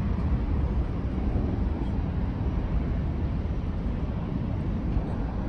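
Airliner's jet engines at takeoff power, heard as a steady low rumble while the aircraft climbs away after takeoff.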